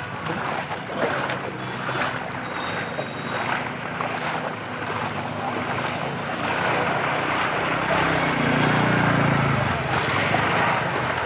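Floodwater sloshing and splashing with wind buffeting the microphone; a low hum swells about eight seconds in and fades again.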